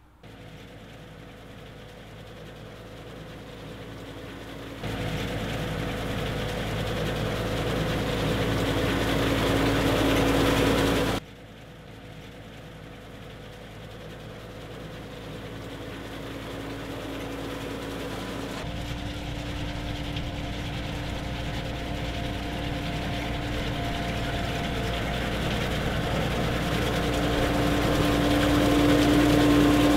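Engine of a self-propelled tulip-topping machine running steadily as it drives along the tulip beds cutting off the flower heads, growing gradually louder as it comes closer. The level jumps suddenly a few times, at about 5, 11 and 19 seconds.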